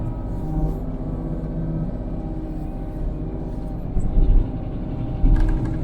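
Kubota KX033-4 mini excavator's diesel engine running steadily under work, with two heavy low thumps, about four seconds in and again near the end, as the machine works through brush and stumps.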